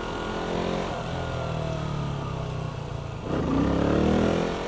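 KTM Duke 200's single-cylinder engine running while riding. About three seconds in the note dips briefly, then rises in pitch and gets louder as the throttle is opened.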